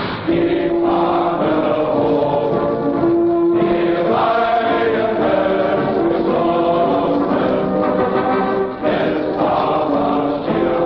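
Choral background music: voices chanting long held notes that move to a new chord every second or two.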